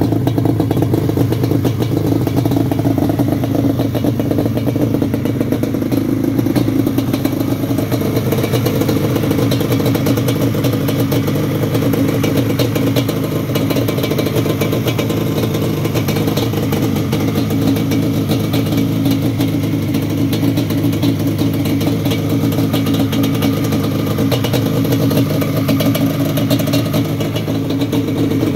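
Yamaha Banshee's twin-cylinder two-stroke engine idling steadily, with a light clatter over the note.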